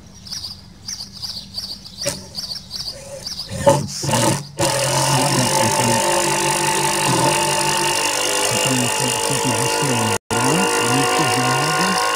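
Small birds chirping for the first few seconds, then, about four and a half seconds in, a louder steady mechanical hum with several held tones: air-conditioner outdoor units running.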